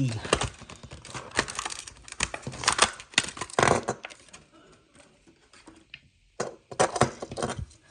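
Hot Wheels blister pack being opened by hand: the plastic bubble and cardboard card crackle and click in a quick run, then a few scattered clicks after a short pause.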